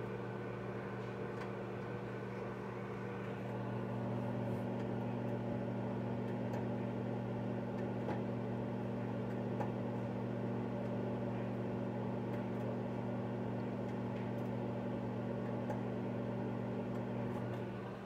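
GE Profile over-the-range microwave oven running: a steady electrical hum that gains a second, higher hum and grows slightly louder about three and a half seconds in, then eases off near the end. The owner takes the oven to have a failing wave stirrer.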